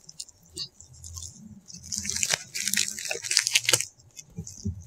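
Scissors snipping into a parcel's packaging, then the packaging crinkling and rustling as it is cut and pulled open. The rustling starts about two seconds in and is loudest for about two seconds.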